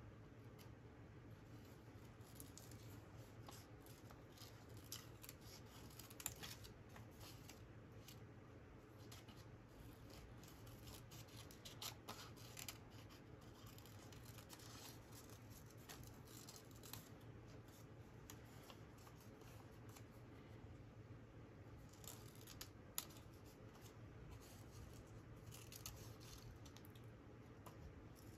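Small scissors snipping paper in short, irregular cuts while trimming around a printed image, faint throughout.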